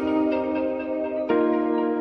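Background instrumental music: soft, sustained ringing notes, with a new chord struck a little over a second in.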